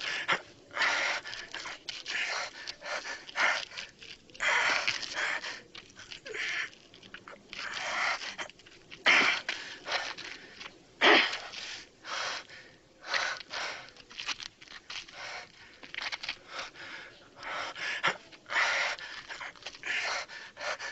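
A man breathing hard: ragged, gasping and panting breaths at irregular intervals, as if from heavy exertion.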